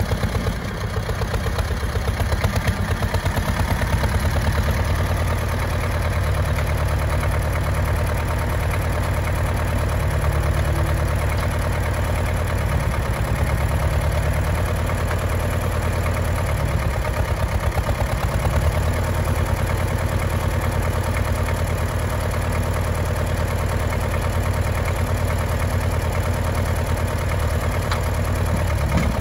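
Ursus 335 tractor's diesel engine running steadily at low revs, near idle, with an even pulsing beat.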